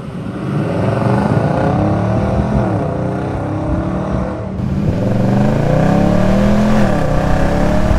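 Nissan Titan's 5.6-litre V8, fitted with a cold air intake, accelerating: the exhaust note rises in pitch, drops at an automatic upshift about three seconds in, climbs again and drops at another upshift near the end.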